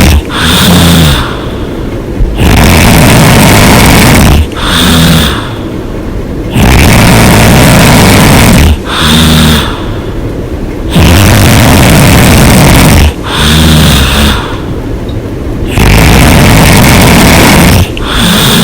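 A person snoring loudly and hard through an open mouth, in a slow, even rhythm of about one breath every four seconds. Each breath is a loud, harsh stretch of about two seconds followed by a quieter, lower stretch, four times over.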